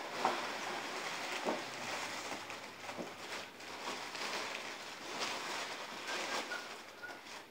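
Paper gift bag and its wrapping rustling and crinkling as clothing is pulled out of it: a continuous crackle of paper and fabric handling with small ticks throughout.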